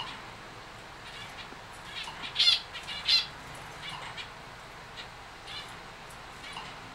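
Zebra finches calling in a cage: short, nasal beeping calls come one after another, loudest in a cluster about two and a half to three seconds in.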